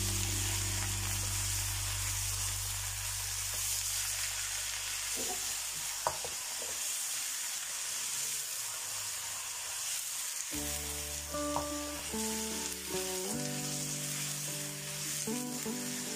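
Raw beef pieces frying in hot oil with browned onions in a wok, sizzling steadily while a wooden spatula stirs them, with a few light clicks of the spatula against the pan. Soft background music plays under it.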